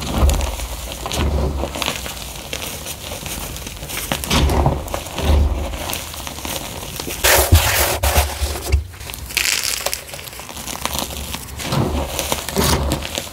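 Soft gym chalk blocks coated in drinking-chocolate powder being crushed and crumbled by hand in a bamboo bowl: irregular crunchy crackling with dull thuds, loudest a little past halfway.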